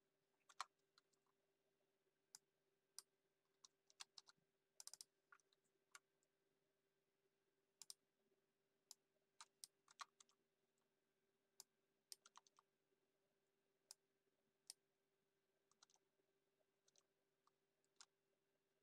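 Computer keyboard keys pressed in scattered, irregular clicks, with a quick run of keystrokes about five seconds in, over a faint steady hum.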